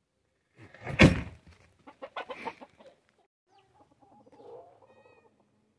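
Chicken clucking in a few short bursts, the loudest about a second in, then quieter calls.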